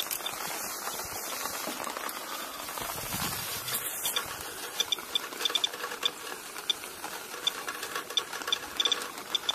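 Radiation counter (Geiger counter) clicking at a downspout, its clicks starting about halfway through and coming in irregular clusters of several a second over a steady hiss of rain. The rising count shows radioactivity in the rainwater, which the operator calls "hot rain".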